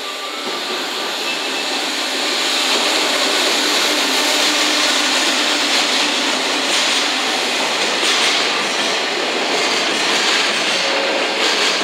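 Container freight train passing slowly behind a JR Freight EF210 electric locomotive, with the locomotive going by and then a long run of container wagons rolling over the rails. The noise builds over the first couple of seconds, then holds steady.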